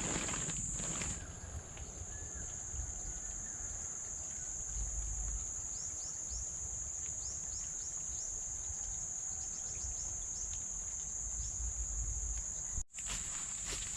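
Insects, like crickets, drone steadily at one high, even pitch. In the middle comes a run of short, falling chirps. Several knocks, like footsteps, sound in the first second.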